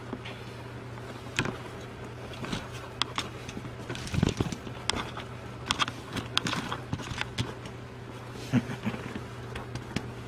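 A Turkish Van cat pawing and scrabbling at a door: scattered soft clicks, taps and scrapes, busiest in the middle stretch, over a steady low hum.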